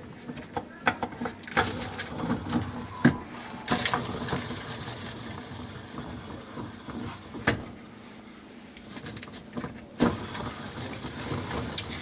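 Clicks and knocks of hands working at the exposed wash pump of a Maytag Jet Clean Quiet Pack dishwasher. About four seconds in, a steady whirring hiss starts and slowly fades, and it comes again near the end: the pump impeller spinning with the broken discharge housing removed, and it does not sound near as bad.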